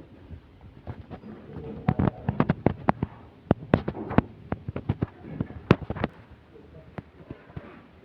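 A rapid, irregular series of sharp cracks or knocks, densest between about two and six seconds in.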